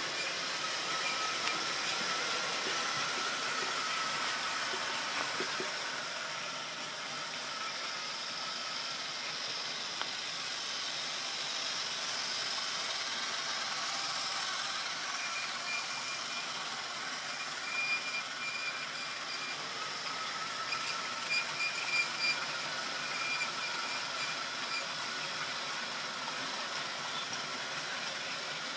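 Model railway train running along the track: a steady rolling hiss, with a faint high tone that comes and goes and a few light clicks about two-thirds of the way through.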